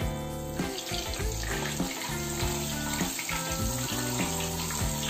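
Butter melting and sizzling in a hot kadai, a steady frying hiss, over instrumental background music whose notes change every fraction of a second.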